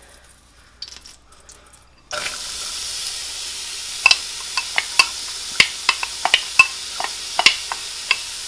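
Chopped onion dropped into hot olive oil in a stockpot. A sizzle starts suddenly about two seconds in and holds steady, with many sharp clicks as a wooden spoon scrapes the onion out of a bowl into the pot.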